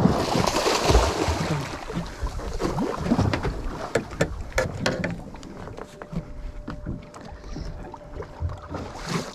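Sounds aboard a small fishing boat: a sudden rush of water-and-wind noise at the start that fades over about two seconds, then scattered knocks and clatter on the boat, over a faint steady hum.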